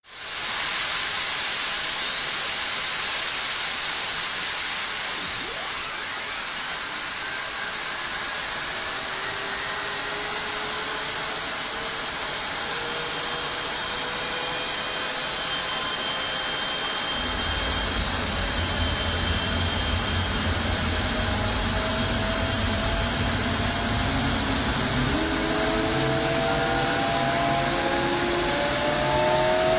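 F-16 jet engine running on a ground test stand: a loud rushing hiss with a high whine that climbs in pitch over the first several seconds. Several more tones then rise steadily in pitch as the engine speeds up, and a deep rumble comes in a little past halfway.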